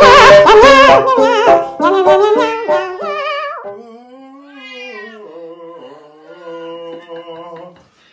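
Music with singing and a plucked string instrument, loud for about three seconds and then fading out. It is followed by long, wavering vocal notes: a cat yowling for its food, joined near the end by a lower, steady man's singing voice.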